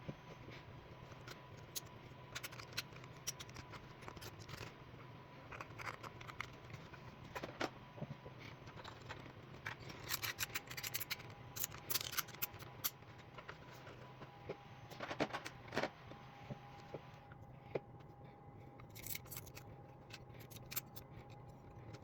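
Irregular small clicks and scrapes of hard objects being handled, some coming in quick clusters, over a steady faint hum.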